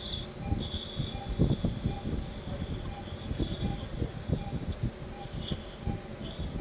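Surgical suction running during endoscopic sinus surgery, clearing fungal debris: an uneven crackle over a steady hiss, with a faint high whine that comes and goes.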